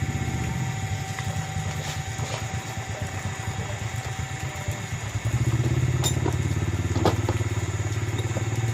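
A small engine running steadily, growing louder about five seconds in, with two sharp knocks about a second apart.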